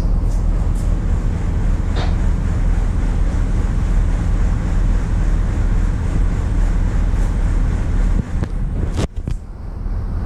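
Cargo ship's diesel engines droning steadily, a deep hum heard from the wheelhouse, with wind rushing on the microphone. A couple of short clicks come about two seconds in and near the end.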